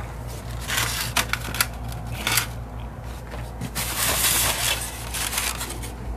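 Black plastic compartment takeout tray being handled and pressed, the plastic crackling: a few sharp clicks about a second in and again past two seconds, then a longer crinkling rustle around four seconds, over a steady low hum.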